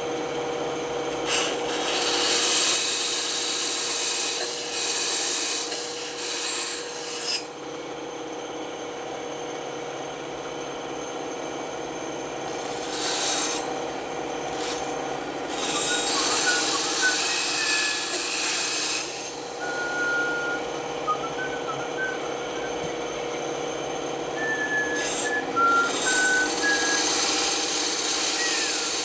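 Band saw running with a steady hum, its blade cutting through wood in four passes of a few seconds each, with the saw running free between cuts. A few short high squeaks come during the later cuts.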